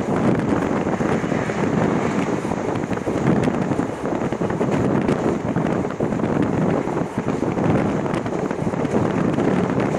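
Wind rushing over the microphone from a moving train's window, over the steady running noise of the train.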